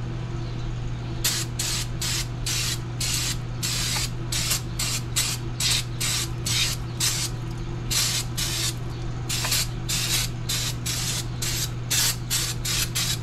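Aerosol brake cleaner sprayed in many short hissing bursts, starting about a second in, onto a drum-brake backing plate and spindle to wash off grease and brake dust.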